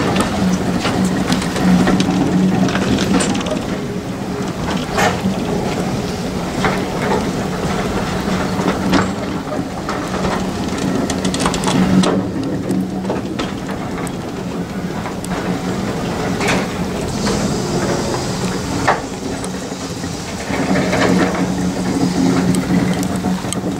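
A train of railway coaches rolling slowly past, with irregular clicks and knocks from the wheels and couplings over a steady low hum. Rain and wind noise on the microphone run throughout.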